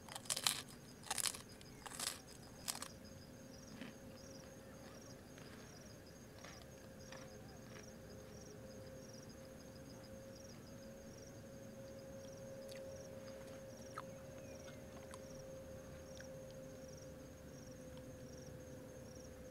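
Four loud close-up eating noises in quick succession in the first three seconds, then insects chirping in an even pulsed rhythm, with a steady low drone underneath.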